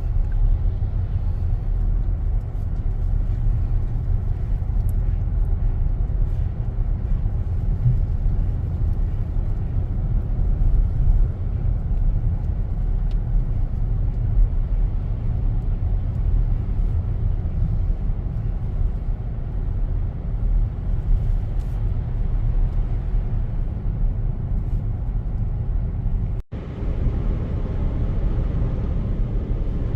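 Steady low road and engine rumble inside a moving car's cabin. It drops out for an instant about 26 seconds in.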